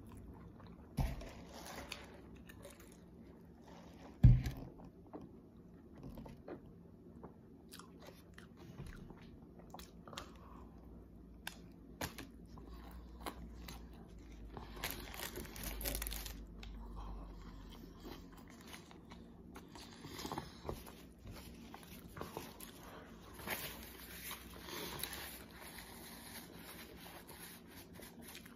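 A man chewing and biting into a Whopper burger close to the microphone, with scattered small crunches and clicks. One loud knock about four seconds in.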